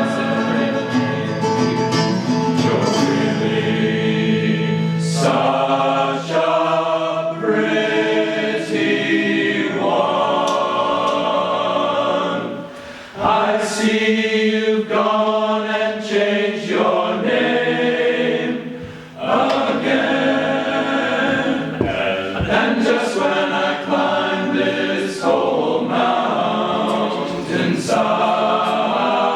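A choir singing, many voices holding sustained chords, with two brief breaks about 13 and 19 seconds in.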